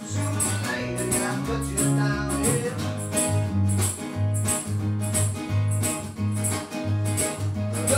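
Two guitars played together in a steady strummed rhythm, with a regular beat.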